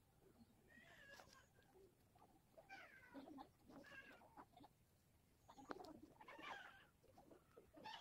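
Faint animal calls, several short calls a second or two apart.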